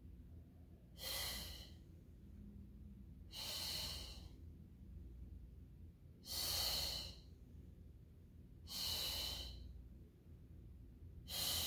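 A woman's sharp, hissing exhales, one about every two and a half seconds, five in all. The breathing is the effort breath of the Pilates criss-cross exercise, with one exhale on each twist.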